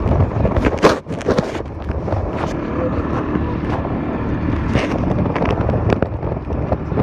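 Moped engine running steadily on the move, with wind on the microphone and a few sharp knocks about a second in.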